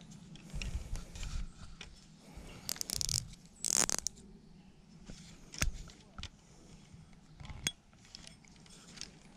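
Hands rigging a fishing rod: irregular clicks and knocks from the rod, reel and line, with rubbing noise close to the microphone. The loudest is a brief scrape about four seconds in.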